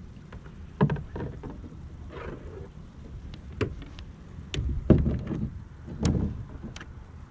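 Knocks and clunks of gear and the angler's movements against the plastic hull of a Hobie Outback fishing kayak while he casts, six or so separate hits, the loudest about five seconds in, over a low rumble of wind on the microphone.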